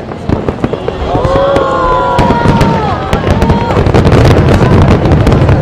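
Fireworks display in a rapid barrage: many aerial shells bursting in quick succession, the booms and crackle growing denser and louder from about a second in. Wavering pitched tones sound over the bangs through the middle.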